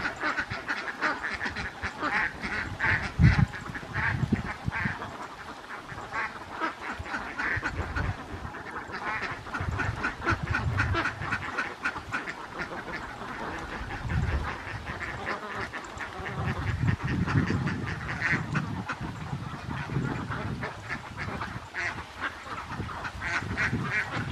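A large flock of domestic ducks quacking in a dense, overlapping chorus of many short calls.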